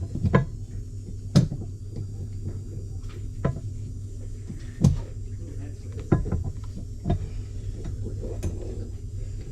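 Scattered sharp knocks and clunks, about six spread over several seconds, over a steady low hum.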